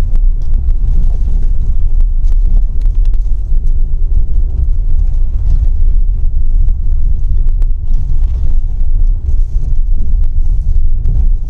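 Tata Nexon turbo-petrol SUV driving up a steep, stony off-road track: a loud, steady low rumble with frequent sharp knocks and clicks.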